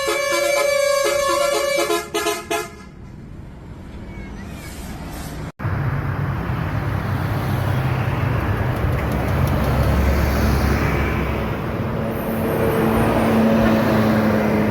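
Bus's Basuri telolet musical air horn playing a quick tune of stepping notes, then fading out about three seconds in. After a sudden cut, a loud, even rumble of vehicle and road noise fills the rest.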